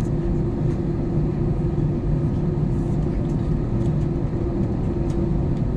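Jet airliner cabin noise: a steady engine and airframe rumble with a constant hum, heard from inside the cabin, with a few faint ticks.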